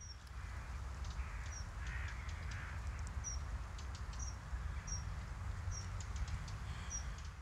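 Birds calling outdoors: a short high chirp repeated about once a second, with a few harsher, rougher calls in the first few seconds, over a steady low rumble of wind on the microphone.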